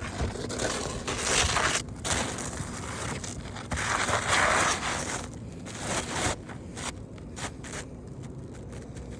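Asphalt roof shingle being worked and slid into place on the roof, in several irregular rough bursts of scraping and crunching against the shingles around it. The loudest bursts come about a second in and about four seconds in.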